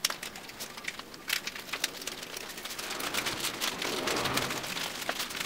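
A utility knife slicing through the tape and black plastic wrapping of a parcel, then the plastic being pulled and peeled open, with a dense run of small crinkles and crackles.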